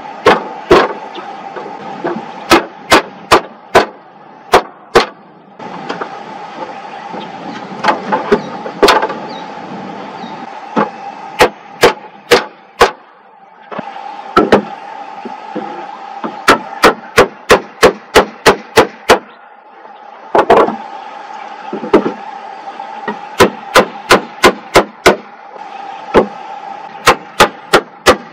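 Sharp, loud blows of a hatchet striking wooden logs, some single and some in quick runs of about three a second, as the logs of a log wall are knocked into place. A steady hum runs underneath.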